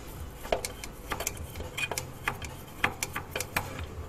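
Scattered light clicks and taps, about a dozen at irregular intervals, from hands and tools working at an engine's throttle body.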